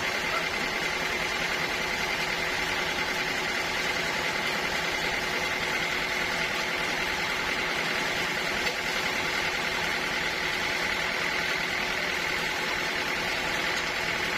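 Sawmill machinery running steadily: a continuous mechanical hum with a high whine that holds level and pitch throughout.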